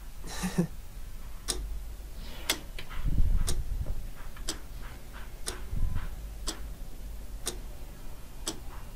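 Clock ticking steadily, about one tick a second, with a brief low rumble twice in the middle.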